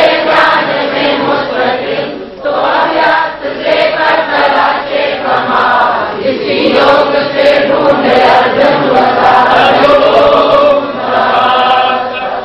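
A group of voices singing a devotional verse together in sustained, melodic phrases, with short breaks about two and six seconds in.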